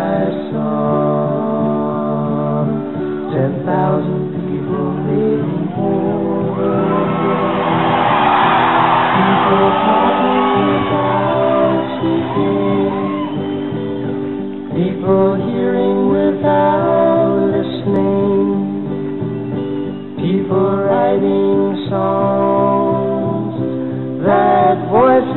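Background music: a song with singing over guitar accompaniment.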